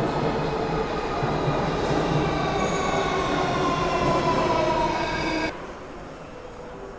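Underground metro train pulling into the station and braking, with wheel and running noise and several whining tones slowly falling in pitch as it slows. The noise drops away suddenly about five and a half seconds in, leaving a quieter hum.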